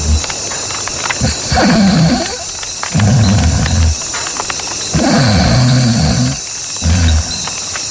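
A tiger sound effect: four or five low, rumbling growls, each about a second long, with short gaps between them.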